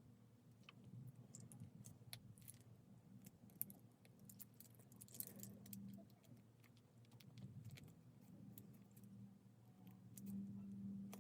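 Faint, scattered small metallic clicks and scrapes of a flathead screwdriver prying up the base tabs of a die-cast toy car to free its axle, over a low steady hum.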